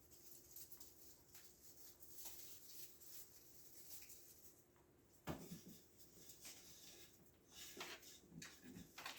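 Faint handling noises: soft rustles and clicks, with one sharper knock about five seconds in.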